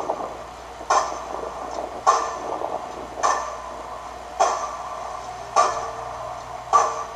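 Railway workmen's repetitive banging, a strike about every second with a short ring after each, six strikes in a steady rhythm.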